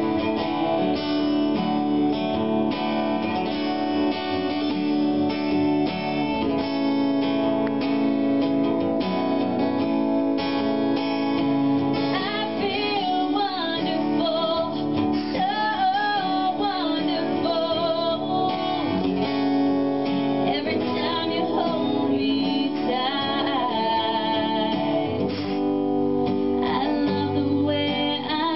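Live female vocal with acoustic guitar accompaniment. The guitar carries the first part, and the sung melody comes in strongly about twelve seconds in.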